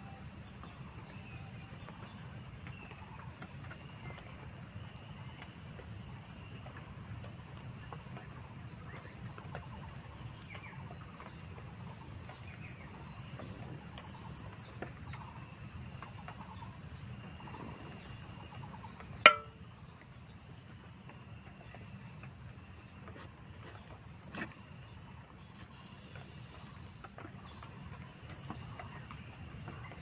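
A high-pitched insect chorus that swells and fades about every two seconds. A single sharp click sounds about two-thirds of the way in.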